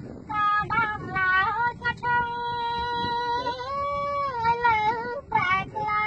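A boy singing a Khmer song unaccompanied, with no backing music. The phrase starts a moment in, and the middle holds one long note that lifts briefly in pitch and falls again.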